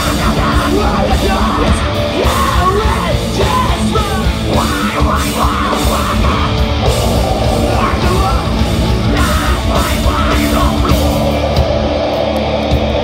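Live heavy rock band playing, with distorted electric guitars, drums and a shouted and sung lead vocal. The band sound thins out near the end.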